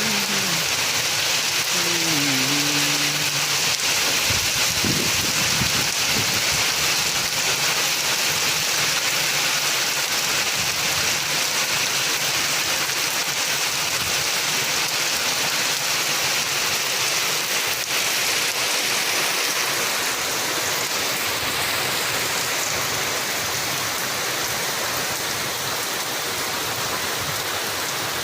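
Steady heavy rain falling, an even hiss that eases slightly over the last third. A faint pitched, voice-like sound rises and falls briefly in the first few seconds.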